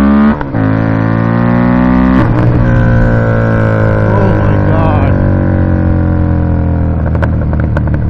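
2018 Indian Scout Bobber's 1133 cc V-twin running through a Freedom Performance Combat 2-into-1 exhaust under acceleration. The engine note climbs, drops with an upshift about half a second in and again about two seconds in, then settles into a steady rumble at cruising speed.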